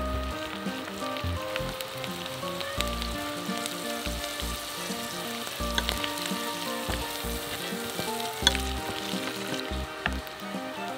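Sliced mushrooms sizzling in butter in a nonstick frying pan, stirred with a spatula that clicks and scrapes against the pan now and then.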